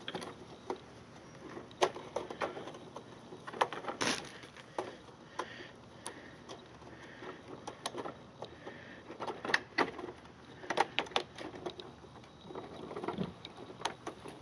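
Rubber track being worked over the plastic drive wheels of a Zodiac MX6 pool cleaner by hand: irregular clicks, knocks and rubbing of rubber on plastic.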